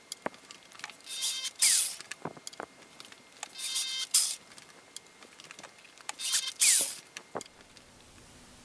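Tool-post drill running in three short bursts, each under a second, as it drills tap-drill holes into a metal lathe pulley, with small clicks and knocks between the bursts.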